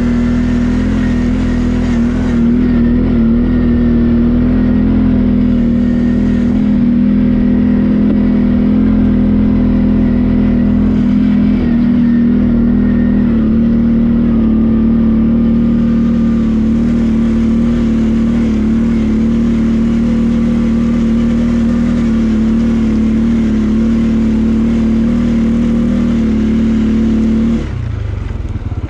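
CFMoto ATV engine running at a steady pace under way, holding one even pitch. Near the end the pitch drops briefly as the throttle eases off, then starts climbing again.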